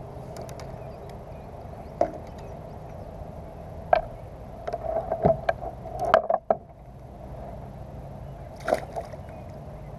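Scattered knocks and taps on the plastic hull of a Lure 10 fishing kayak as a caught bass is handled, with a cluster of knocks about five to six seconds in, over a steady low hum.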